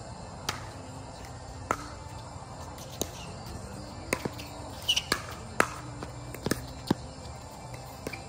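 Pickleball paddles hitting a plastic ball in a rally, sharp clicks about a second apart at first, then coming quicker in a flurry of volleys from about four seconds in.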